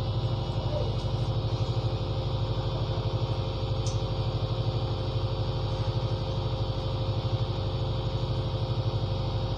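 Engine running steadily: a low drone with a fast, even throb.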